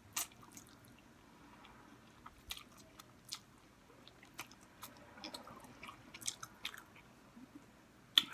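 Close-miked eating of instant noodles: irregular wet chewing, lip smacks and mouth clicks, a few of them sharp and loud.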